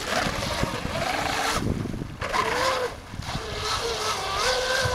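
Radio-controlled speedboat's motor whining as the boat runs at speed. Its pitch rises and falls, drops away briefly twice, and climbs higher near the end, over wind buffeting the microphone.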